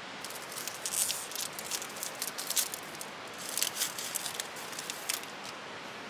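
Plastic food packaging crinkling and crackling in the hands as it is opened, in irregular clusters of rustles that stop about five seconds in, over a steady hiss.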